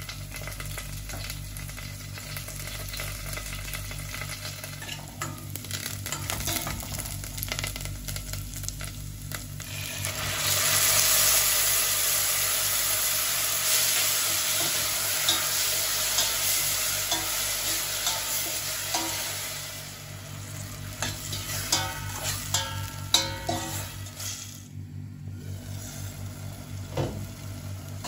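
Chopped onion and curry leaves frying in oil in a stainless steel pot. About ten seconds in, tomato puree goes in and a much louder sizzle starts, easing off over the next ten seconds. After that comes a metal spoon stirring and scraping against the pot.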